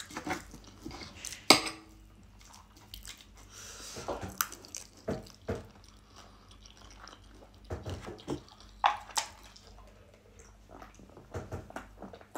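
A fork clinking and scraping on a plate in scattered sharp clicks, the loudest about a second and a half in, with chewing between them.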